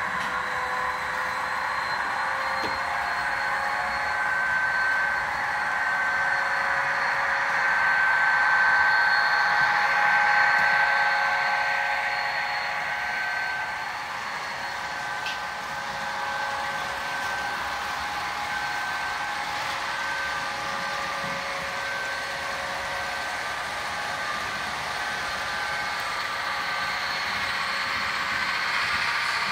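Long model freight train running past, pulled by ScaleTrains SD40-2 and SD45 diesel locomotives: a steady mechanical hum with a few held whining tones over the rolling of the cars on the track. It swells about a third of the way in and eases a little near the middle.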